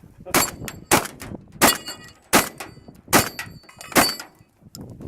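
Six shotgun shots in quick succession, about one every 0.7 s, with the high ringing of hit steel targets after several of them.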